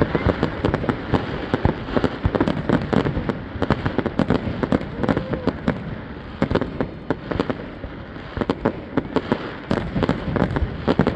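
Fireworks going off in a dense, rapid barrage: many sharp cracks and bangs each second, overlapping with a continuous crackle.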